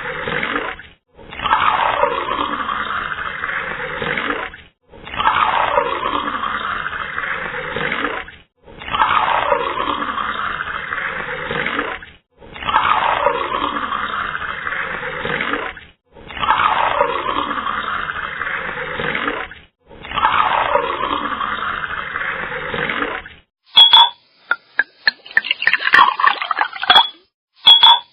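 Water pouring into a cup, the same few-second pour repeated seven times with short gaps, its pitch sliding as the cup fills. Near the end it changes to sharp clinks, like ice knocking in a glass of water.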